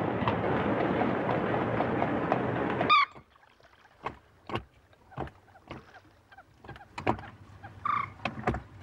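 A steady din of street noise for about three seconds, which cuts off abruptly. Then a quiet stretch of scattered knocks and splashes from a wooden rowboat being rowed: oars dipping and knocking in their rowlocks, with a brief squeak near the end.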